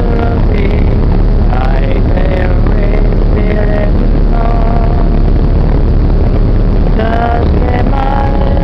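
Boat's engines and churning wake making a loud, steady rumble, with voices singing a song over it in held notes.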